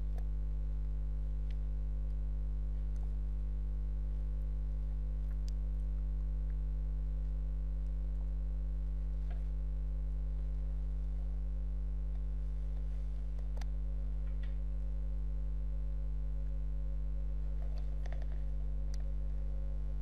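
Steady low electrical mains hum with a buzzy edge, picked up by the recording setup. A few faint clicks are scattered through it.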